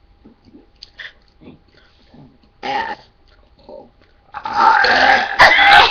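Human belching: a short belch about two and a half seconds in, then a long, loud, rough belch starting about four seconds in.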